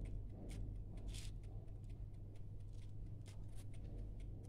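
Fingers stirring rice and toasted vermicelli in a plastic colander, giving a series of short, dry rustles over a steady low hum.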